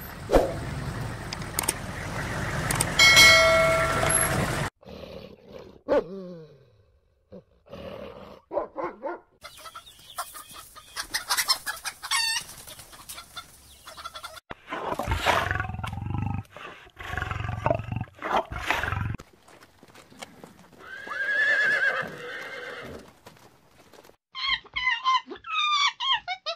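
A short logo sound effect, then a string of separate animal calls, among them a rooster crowing.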